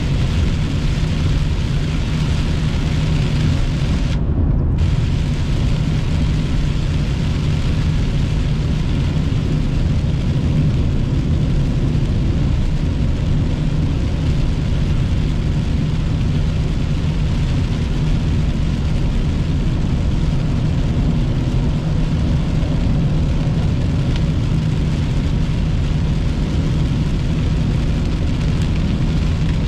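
Steady cabin noise of a car driving on a wet road in rain: a low engine and tyre drone with a hiss of spray and rain.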